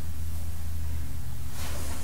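A steady low hum, with a brief rustle of handling about one and a half seconds in as the old vane hydraulic pump is lifted free of its line.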